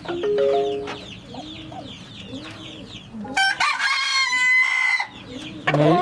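Chickens clucking in low, repeated notes, with a rooster crowing about three and a half seconds in.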